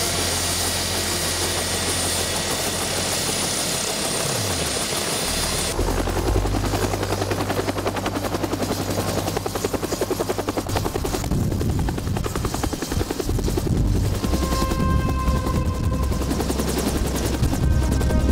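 Bell Huey-type turbine helicopter running: a steady turbine hiss and whine at first, then from about six seconds in the fast, even beat of its two-bladed main rotor with a low rumble as it lifts off and climbs overhead.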